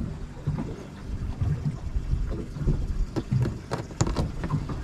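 Wind noise on the microphone aboard a small boat on the water, low and uneven, with a few sharp clicks about four seconds in.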